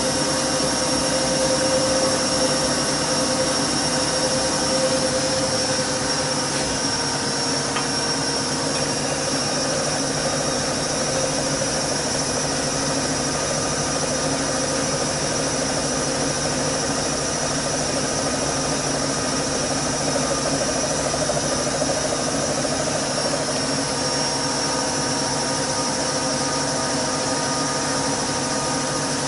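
Siemens 6127 front-loading washing machine spinning at high speed on the easy-care programme: motor and drum give a steady whine. The machine shakes somewhat because it has not regained its stability since it was moved and re-levelled.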